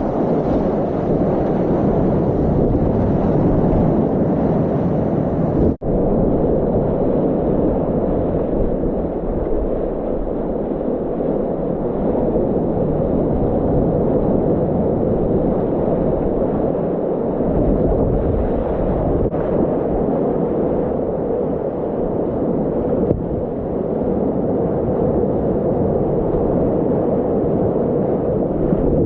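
Wind buffeting the microphone over the wash of lake waves, a loud steady rumbling noise, with a brief dropout about six seconds in.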